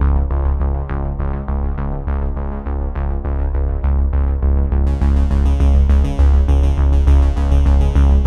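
Electronic synthesizer background music: a quick, even run of notes over a strong bass. About five seconds in, brighter high parts join in.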